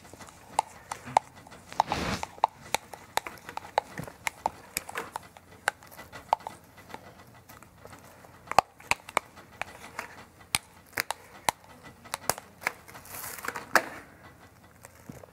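Food wrap being pulled from its box and pressed over a bowl: a run of irregular crinkles and sharp clicks, with a louder rustle about two seconds in and another near the end.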